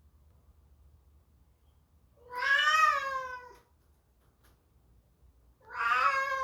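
Domestic cat meowing loudly: two drawn-out meows about three seconds apart, each rising and then falling in pitch.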